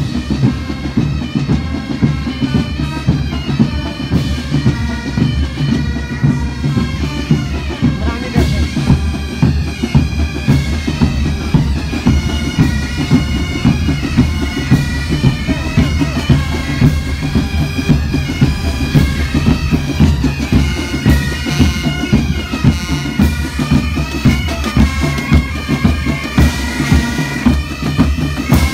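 Music: a tune over a steady drone, with a steady drum beat.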